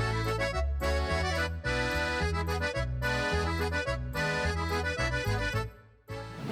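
Bouncy accordion-led background music over an oom-pah bass, cutting off about half a second before the end.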